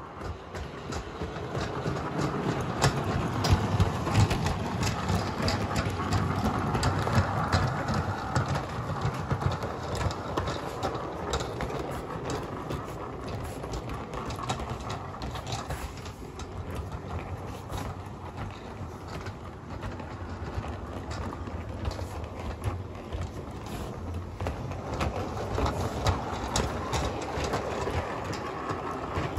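Bachmann G-scale Thomas the Tank Engine model locomotive running on track and pulling trucks: a steady motor and wheel hum with many small clicks from the wheels crossing rail joints.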